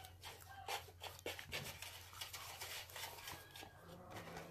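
Close-up eating sounds: a soft Philly cheesesteak roll being pulled at and bitten, then chewed with a mouthful, giving many small soft clicks and smacks. A faint steady low hum sits underneath.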